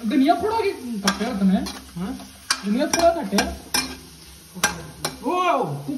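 Steel ladle stirring chopped onions in an aluminium kadai, scraping the metal with squealing strokes that slide up and down in pitch and knocking sharply against the pan several times, over onions sizzling in oil.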